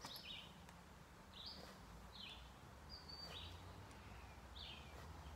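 Faint bird chirping: short, high notes repeated about every half second to second, over a low background rumble.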